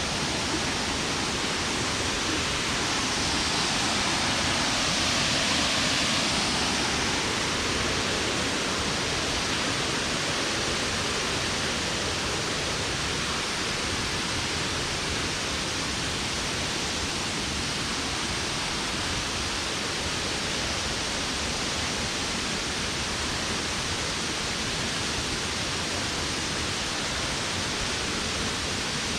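Steady rush of falling water from a waterfall, a little louder and brighter a few seconds in.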